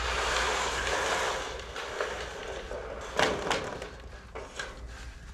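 Thin 29-gauge metal roofing panels being handled: a rushing, rattling wobble of the sheet metal for about a second and a half, then several sharp knocks, the loudest about three seconds in.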